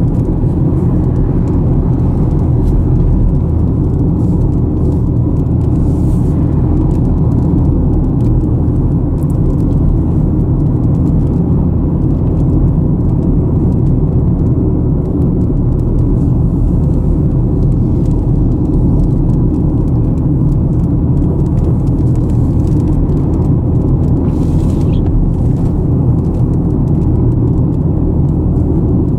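A car on the move: a steady low rumble of engine and road noise, unchanging throughout.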